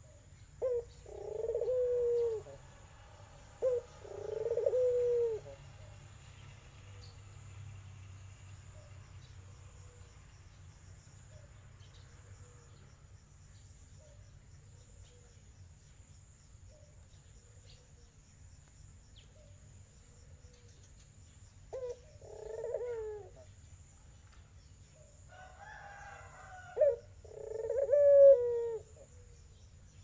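Iraqi puter (Barbary dove) cooing four times, twice near the start and twice in the last third. Each call is a short clipped note followed by a longer, drawn-out coo.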